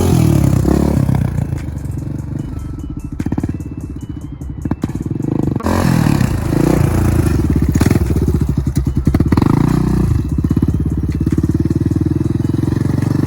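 Honda TRX400ex quad's single-cylinder four-stroke engine, loud and close, revving hard and easing off as the rider pops wheelies. It drops lower for a few seconds about two seconds in, then opens up again and stays high.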